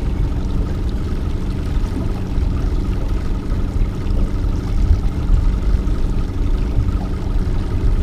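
Outboard motor running steadily at slow trolling speed, a constant low hum with a faint steady whine above it, along with water churning at the stern.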